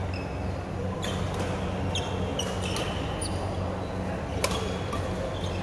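Badminton rally on an indoor court: sharp racket strikes on the shuttlecock, the loudest about four and a half seconds in, with short squeaks of players' shoes on the court floor. A steady low hum runs underneath.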